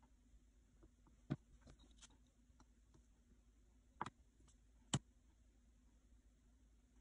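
Near silence broken by three short taps of hands and a craft tool against a cutting mat as clay is worked, the last, about five seconds in, the loudest.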